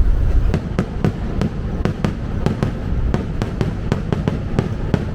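Fireworks going off: a quick run of sharp bangs and crackles, about four a second, starting about half a second in, over a low rumble from the moving train.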